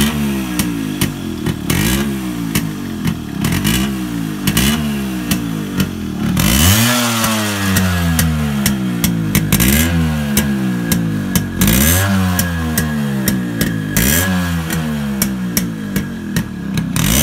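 Yamaha RX100 two-stroke single-cylinder engine running and being revved over and over in short throttle blips, the pitch rising and falling with each one. From about six seconds in, the revs are held a little longer.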